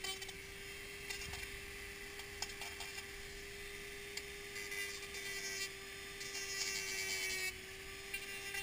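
Handheld rotary tool with a sanding drum running at a steady high speed, giving a constant whine, as it sands the inside of a helmet shell. A scratchy sanding hiss grows louder from about four seconds in and eases near the end.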